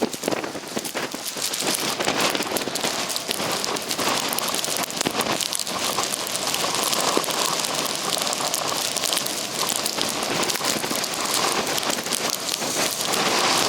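Blizzard wind at gale force driving snow against the microphone: a dense, steady crackling hiss of many tiny impacts, like hard rain.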